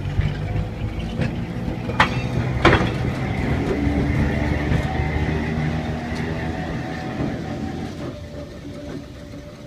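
Vintage New Orleans electric streetcar No. 966 rolling past on its rails with a steady motor hum and a faint whine. There are two sharp clicks about two seconds in. The sound grows louder as the car passes, then fades.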